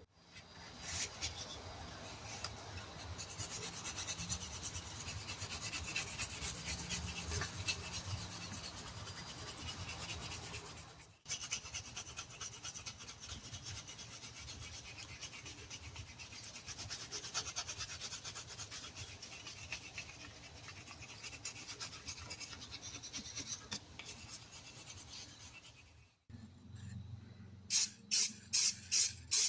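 Cast-iron spokeshave body rubbed back and forth on sandpaper in quick strokes, a steady gritty rasping as the sole and edges are trued flat. It stops briefly twice, and near the end short repeated hisses of spray paint start.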